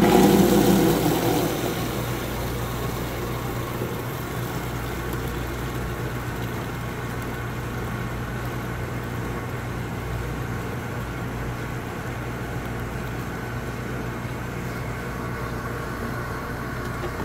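Slurpee machine barrel being drained through its draw valve: a loud gush of foamy, CO2-pressurised slush syrup as the valve opens, settling after about two seconds into a steady stream pouring into a plastic bin, over the steady hum of the machine.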